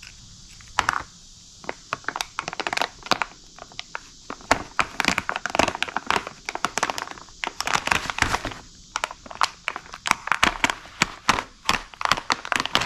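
Thin clear plastic packaging bags crinkling and crackling in irregular sharp bursts as they are handled and slit open with an X-Acto hobby knife.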